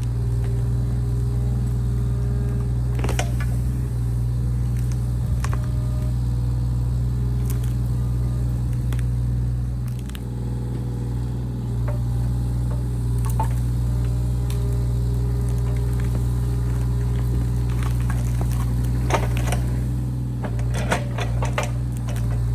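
Mini excavator's diesel engine running steadily while it digs out small saplings and stumps, with scattered clicks and knocks from the digging, a cluster of them near the end.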